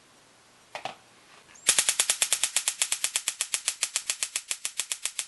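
Stun gun arcing into a small pile of black powder on a metal plate: a fast, even crackle of sharp snaps, about eleven a second, starting suddenly under two seconds in. The powder does not ignite. A brief soft handling noise comes just before, under a second in.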